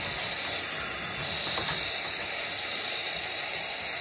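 Gas hand torch burning with a steady hiss, its flame held on a soldered copper pipe elbow to melt the solder.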